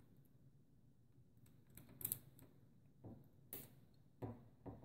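Faint clicks and light scrapes of a panel-mount fuse holder and its glass cartridge fuse being handled in the fingers, a few short clicks spread through the second half.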